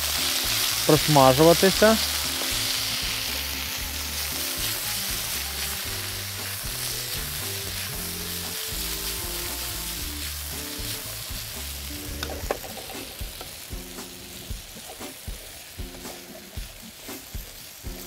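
Sliced potatoes frying in a pan, a steady sizzle with a wooden spatula stirring and scraping through them. The sizzle fades gradually, and a few light taps of the spatula come near the end.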